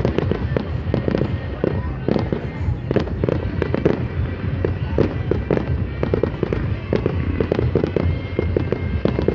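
Fireworks display going off: a dense, irregular run of quick bangs and crackles, with music playing underneath.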